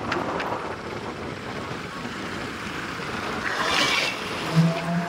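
Wind and road noise from a moving vehicle, steady, with a brief hissing swell about three and a half seconds in. A low steady tone starts near the end.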